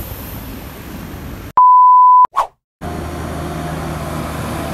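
A single loud, steady, mid-pitched electronic beep lasting about two thirds of a second, with a short blip just after it. Both sit in a gap of dead silence cut into the low rumble of the bus terminal's background noise.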